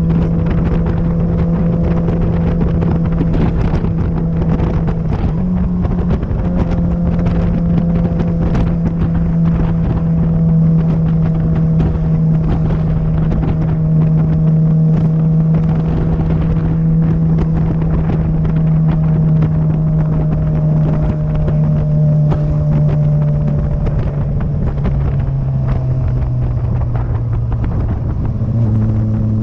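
Motorcycle engine running at steady revs while the bike is ridden on track, with wind buffeting the microphone. The engine note sags slowly near the end and then drops abruptly to a lower pitch.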